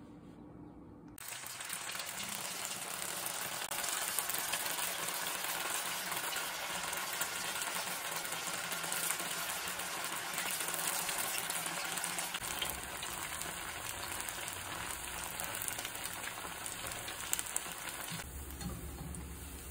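Slices of leftover idli sizzling as they deep-fry in hot oil in a stainless steel pan. The sizzling starts suddenly about a second in and eases slightly near the end.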